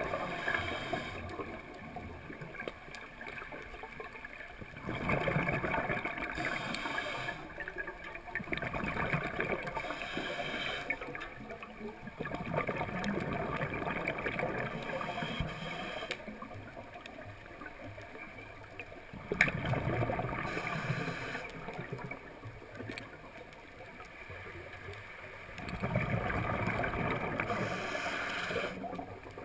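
Scuba diver's regulator breathing heard underwater: exhaled bubbles gurgle in bursts every few seconds, with quieter stretches between breaths.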